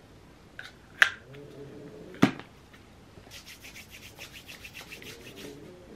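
Two sharp plastic clicks from a Vaseline tub's lid, then hands rubbing quickly together, about six strokes a second.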